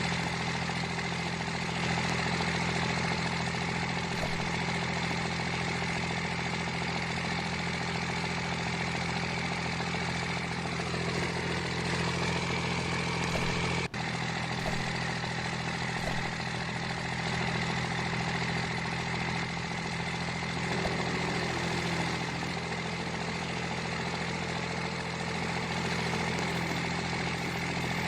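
An engine running steadily, a low, even hum that holds the same pitch throughout, with a brief break about halfway through.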